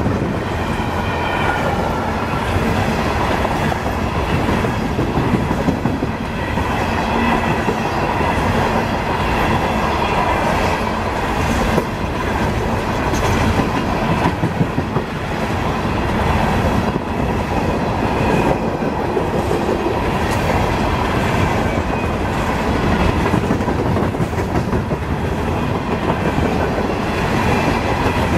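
Freight train's hopper cars rolling past at high speed: steady, loud clatter and rumble of steel wheels on the rails.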